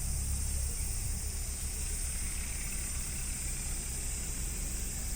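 John Deere tractor's diesel engine running steadily with a low drone, a steady high hiss over it.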